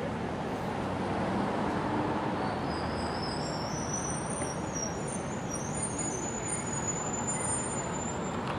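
Street traffic: a steady rumble of passing road vehicles, with a high thin squeal that rises in pitch from about a third of the way in until near the end.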